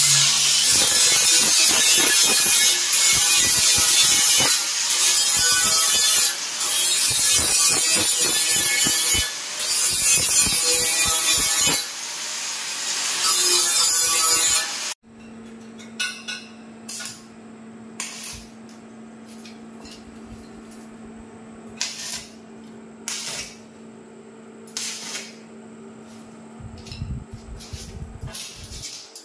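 Angle grinder grinding a stainless steel handrail joint, its motor whine steady with several brief dips as the disc bites and eases. About halfway through it cuts off abruptly, leaving a much quieter steady hum with scattered clicks and taps.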